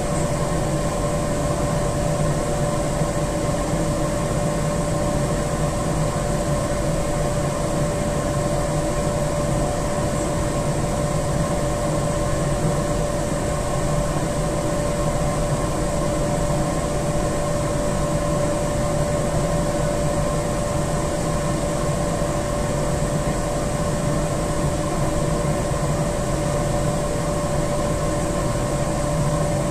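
Steady hum of a large solid-fuel boiler's machinery (its fan and hopper feed motor running), with a constant mid-pitched whine over it.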